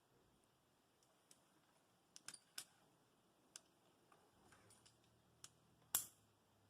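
Climbing gear clinking faintly: scattered sharp metallic clicks, a quick cluster about two seconds in and the loudest single clink near the end.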